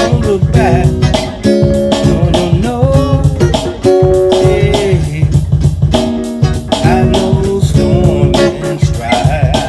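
Guitar vamping over a soul-gospel backing groove of bass and drums, with no lead vocal. The guitar plays lines whose notes bend up and down in pitch over held chords.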